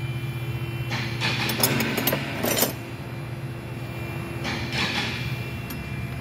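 A steady low hum under light metallic clinks and rustling, as hand tools and a rag are handled in a car's engine bay. The clinks come in a burst from about one to nearly three seconds in and again briefly near five seconds.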